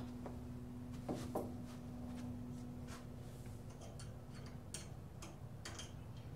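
Scattered light metal clicks and taps of small hand tools being handled, Allen wrenches being picked out for loosening bolts. A faint steady hum runs underneath and stops about halfway through.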